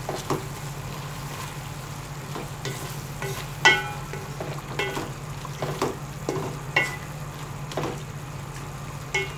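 Wooden spoon stirring chicken and shrimp frying in a metal pot, with irregular knocks and scrapes of the spoon against the pot, the loudest about three and a half seconds in, over a steady low hum.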